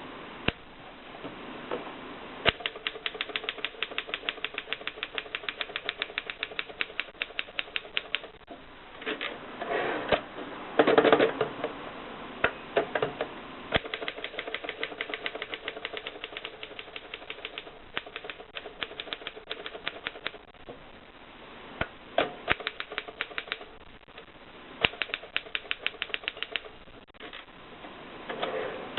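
Typewriter keys clacking in fast runs of about eight strokes a second, broken by short pauses, with a louder, rougher burst about eleven seconds in.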